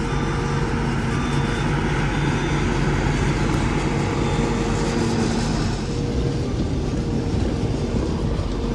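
Combine harvester running steadily: a constant, even mechanical noise.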